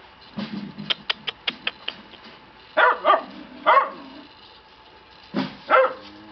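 Shiba Inu puppies barking: three short, high barks about three seconds in, then two more near the end. A quick run of sharp clicks comes about a second in.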